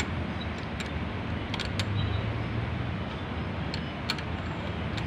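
A wrench tightening the lock nut on a motorcycle's rear brake pushrod: a few sharp metal clicks spread over several seconds, over a steady low hum.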